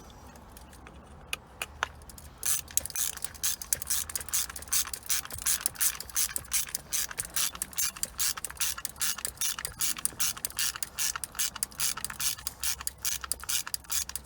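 Ratchet wrench being worked, its pawl clicking rapidly at about five clicks a second as a fastener is run in. There are a couple of single clicks first, and the steady run starts about two and a half seconds in.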